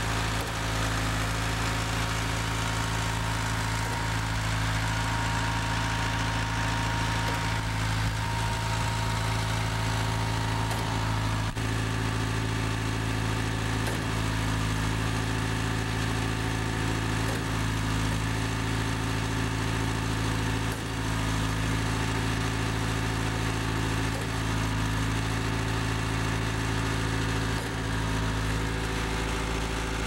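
Engine of a REED A30HP concrete line pump running steadily at a constant speed, its pitch unchanging throughout.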